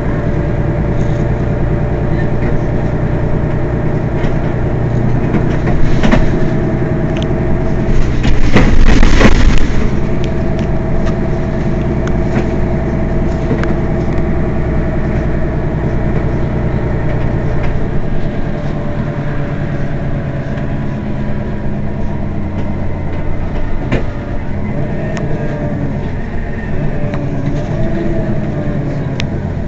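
Mercedes-Benz Citaro city bus engine idling steadily while the bus stands still. A short hiss comes about six seconds in and a louder hiss of about two seconds around nine seconds in. The low drone eases a little past halfway.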